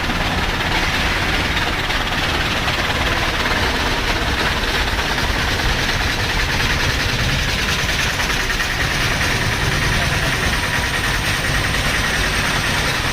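Heavy engine running steadily at idle, an even low drone that does not change.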